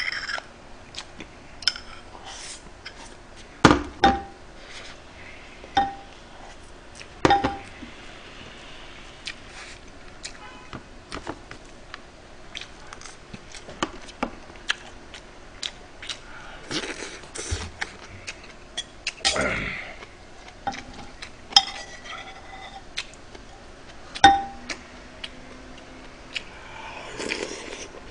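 Metal spoon clinking and scraping against a ceramic rice bowl and an earthenware pot while eating. About a dozen sharp clinks come at irregular intervals, some ringing briefly, with softer scrapes and eating noises between them.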